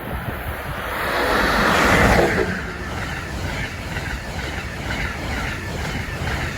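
A passenger train passing at speed: wheel and rail noise that swells to its loudest about two seconds in, then carries on steadily as the cars go by.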